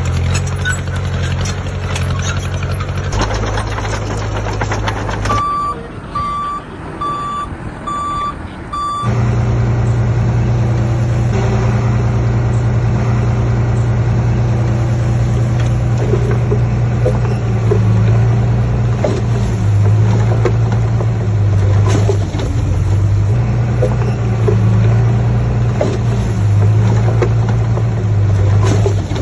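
Heavy diesel engine of construction machinery running. About a fifth of the way in, the engine drops back and a reversing alarm beeps five times at an even pace. The engine then runs louder again, its pitch rising and falling with the throttle.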